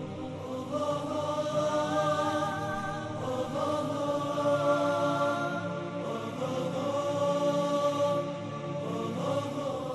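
Vocal theme music: chanted, choir-like voices holding long notes with slow glides in pitch.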